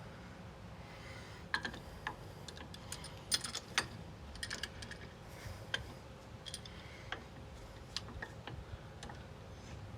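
A hand clamp clicking and tapping against a Brembo brake caliper as it is set in place and squeezed to push the caliper pistons back in. The clicks are irregular light metallic ticks, busiest a second or two in, over a faint low background hum.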